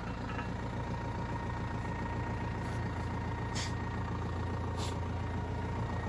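Tractor engine idling steadily, with two brief clicks about three and a half and five seconds in.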